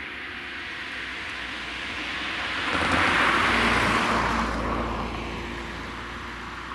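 A car passing close by, its tyre and engine noise swelling to a peak about three seconds in, then fading away.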